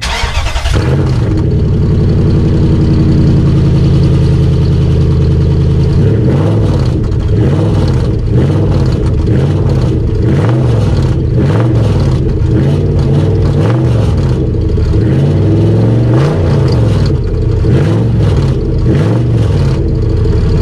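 Truck engine starting up and running through an exhaust cut off just behind the cab, with no mufflers: a raw, raspy drone. From about six seconds in it is revved again and again, roughly once a second, with metal flapping around inside that the owner puts down to a failed mid-pipe.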